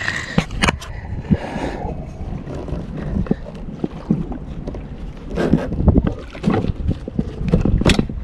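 Wind buffeting the microphone and water lapping against a small boat's hull, with scattered knocks and rubbing as a rope, likely the anchor line, is hauled in by hand over the side.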